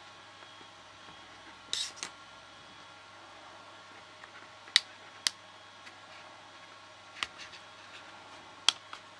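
Sharp clicks and a brief scrape from a metal opening tool and a plastic pick working around the edge of an iPod Touch 6th generation's screen, prying the glass free of its adhesive. The scrape comes about two seconds in, followed by five or so separate clicks spread out after it.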